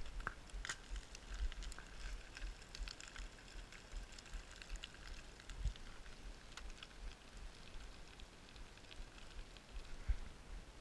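Footsteps on loose scree: stones crunching, clicking and rattling underfoot in many small irregular clicks, with scattered dull thuds of the steps.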